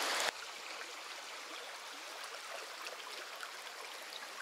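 Creek water running over rocks: a steady rush scattered with small trickling ticks. A louder rush of water cuts off abruptly just after the start.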